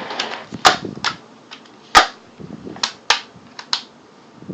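Pump-action BB air rifle being pumped: three sharp clacks of the pump lever about a second apart, each with a short rush of air.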